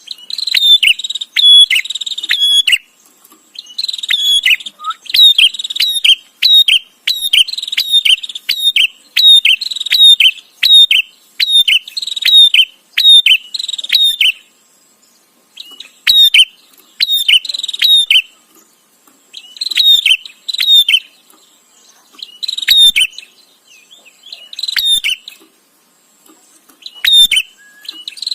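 Prenjak (prinia) calling in a chatty run of sharp, repeated chirps, a few per second, in bouts broken by short pauses; the longest bout lasts about ten seconds.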